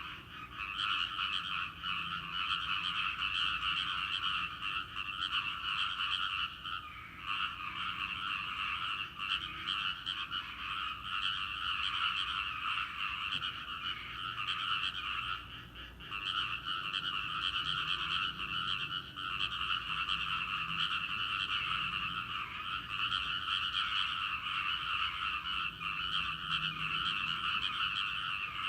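Dense chorus of many frogs croaking without pause, a continuous rapid chatter that thins briefly twice, about seven and fifteen seconds in.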